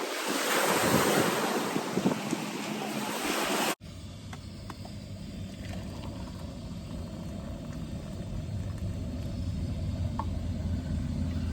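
Loud, steady rushing hiss of heavy rain that cuts off abruptly about four seconds in. A quieter steady low hum follows, with a few faint clicks.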